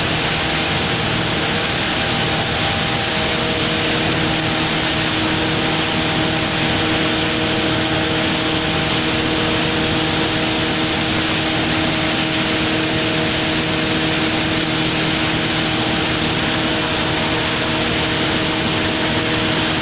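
JLSD1500 sawdust machine and its belt conveyors running: a loud, steady mechanical drone with a constant hum that does not change.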